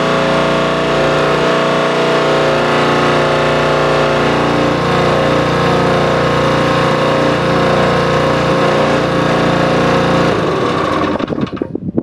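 An engine running steadily at constant speed, then shutting off about ten and a half seconds in and running down within a second.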